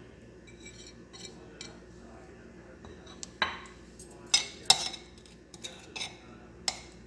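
Kitchen crockery clinking: about six sharp clinks of glass and ceramic, starting about halfway through, over a faint steady hum.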